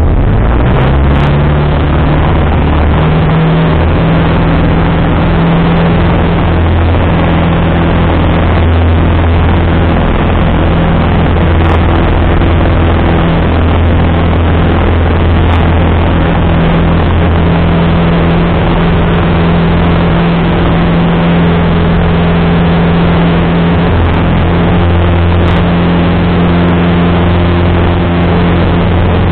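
Single-engine light airplane's piston engine and propeller heard inside the cockpit, rising in pitch over the first few seconds and then running steadily at high power as the plane climbs away, with power back on after a simulated engine failure.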